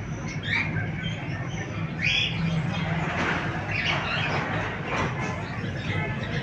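Pet parrots squawking and chirping in short calls, over a steady low hum.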